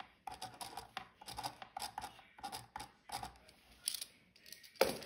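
A pen writing on paper, a quick run of short scratching strokes as a word is printed in block capitals, with a sharper tap near the end.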